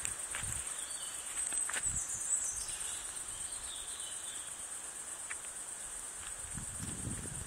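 Insects chirring steadily in a high-pitched drone, with a few faint gliding calls about two seconds in and a low rustling rumble near the end.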